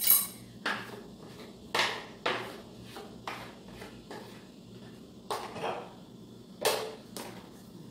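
Utensil scraping thick cake batter out of a plastic blender jar into a round metal baking pan: a string of separate short scrapes and knocks, about ten, spread unevenly.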